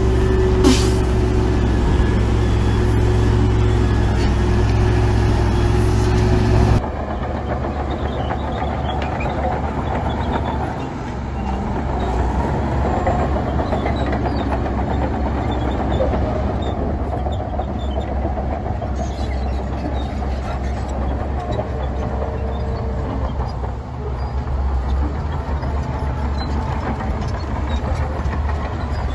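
Heavy diesel construction machinery running steadily. About seven seconds in, the sound switches abruptly to a different engine noise.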